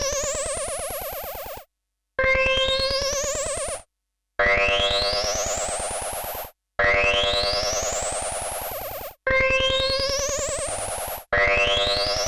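Analog synthesizer sound effect played again and again, about five times: each hit starts abruptly with a fast buzzing pulse, its overtones sweep upward in pitch, fades over about two seconds and cuts off before the next.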